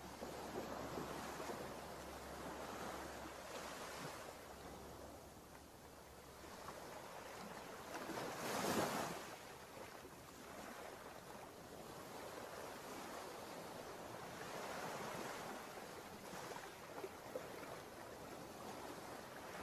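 Ocean surf breaking and washing up a sandy beach: a steady rushing hiss that swells and ebbs with each wave, the loudest wave crash coming about nine seconds in.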